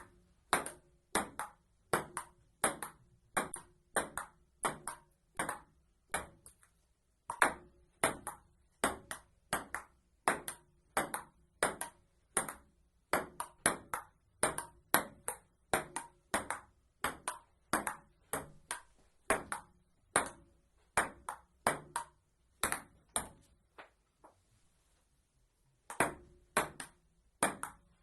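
Table tennis rally: the ball clicking off paddles and the table in a quick, even rhythm of about three hits a second. It breaks off briefly about seven seconds in and again for about two seconds near the end.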